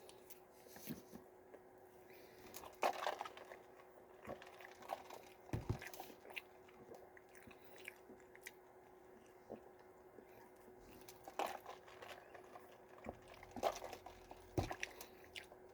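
A person eating a McDonald's cheeseburger: quiet chewing and bites, with irregular soft clicks and smacks of the mouth.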